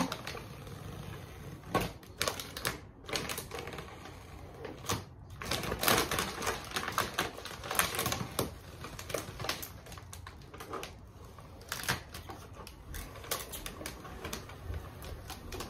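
Vinyl car wrap being peeled off a car door, its adhesive letting go with an irregular run of crackling ticks.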